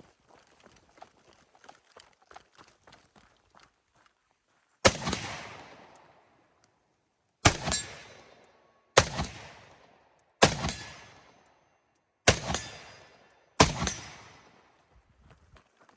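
Six rifle shots fired singly, one to two seconds apart, each trailing off in echo. Light rustling and clicks of gear handling come before the first shot, about five seconds in.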